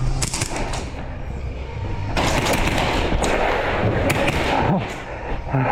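Airsoft guns firing on full auto: a short burst near the start, then a longer stretch of rapid fire from about two seconds in to about five seconds in.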